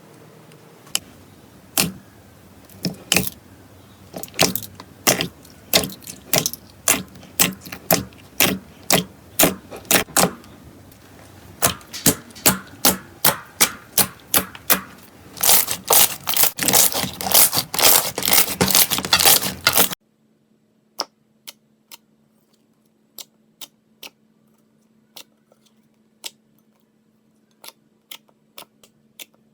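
Slime being played with, giving off sharp, irregular clicking pops that come thicker and louder toward the middle. About two-thirds of the way in it cuts to a much quieter clip, with sparser, fainter clicks over a faint steady hum.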